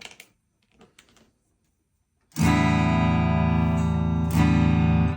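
Electric guitar chord strummed through an amplifier with the overdrive pedal still switched off, so the tone is clean. A few faint clicks come first; the chord starts about two seconds in and rings, is strummed again about a second later, and stops abruptly.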